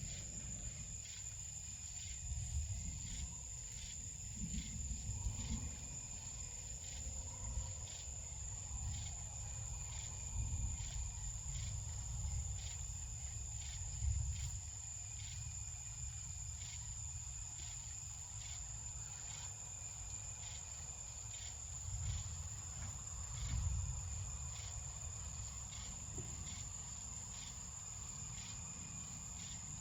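Night insects, crickets among them, chirping steadily: a constant high drone with a regular chirp pulse. Under them are low rumbling swells that rise and fall several times.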